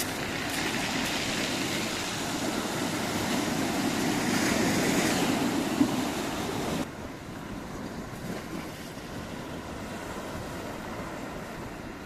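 Steady rush of wind and surf, swelling over the first few seconds with one brief click, then dropping abruptly to a quieter, even hiss about seven seconds in.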